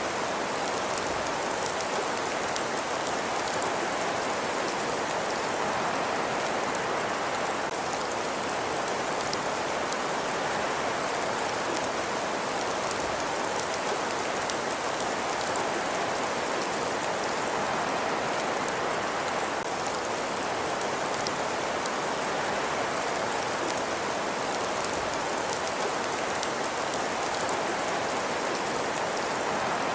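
Crackling wood fire in a fireplace: a steady hiss thick with fine pops and crackles, unchanging throughout.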